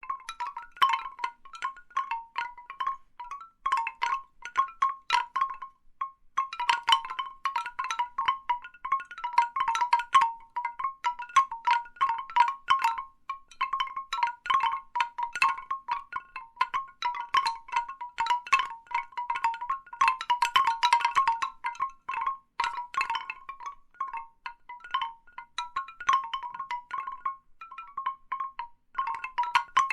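Large bamboo wind chimes clacking together in irregular, quick clusters of short pitched knocks, with a brief lull about six seconds in.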